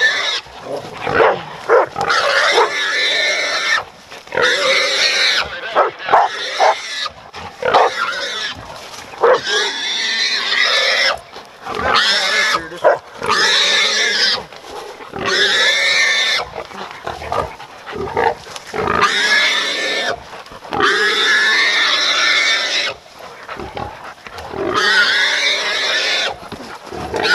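Wild hog squealing loudly and over and over, long wavering screams with short breaks between, as catch dogs hold it.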